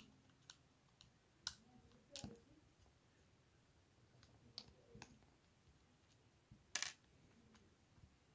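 Faint scattered clicks and light knocks from a screwdriver and the plastic front panel of a Sony car cassette deck being handled while its small screws are undone. The loudest click comes about two-thirds through.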